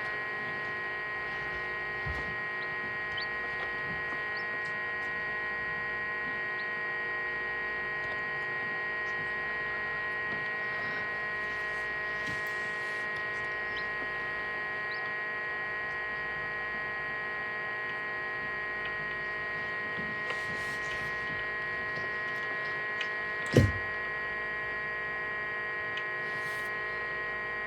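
Egg incubator's fan motor running with a steady electrical hum. A single sharp knock about three-quarters of the way through.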